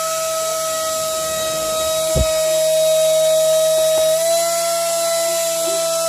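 Racing-drone brushless motor (2300kv) driving a handheld fan's blades, running with a steady high electric whine over air hiss. The pitch steps slightly up about four seconds in, and there are a couple of faint knocks.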